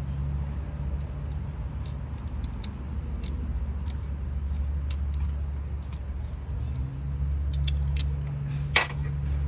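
Hand tools clicking and clinking against metal bolts and engine parts, in scattered light ticks with one sharper clack near the end. A steady low hum runs underneath.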